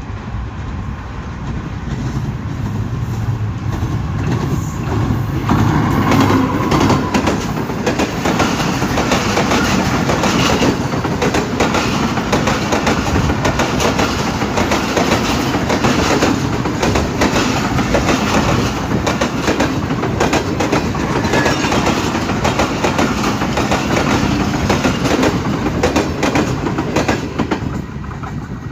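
Train running on rails with steady wheel clatter over the rail joints. It grows louder over the first few seconds, then holds steady.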